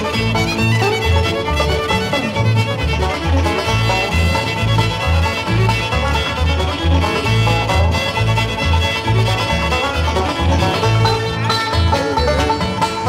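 Bluegrass instrumental music with banjo and fiddle over a steady bouncing bass line.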